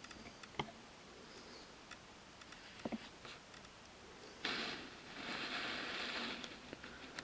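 Cardboard packaging being handled: a few light knocks in the first three seconds, then cardboard scraping and rustling in two stretches, the second over a second long, as the box is opened.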